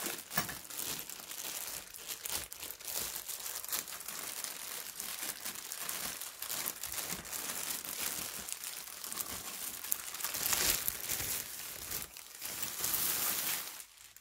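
Clear plastic bag crinkling and rustling steadily as it is handled and pulled off a metal lamp stand, with a louder stretch about ten seconds in.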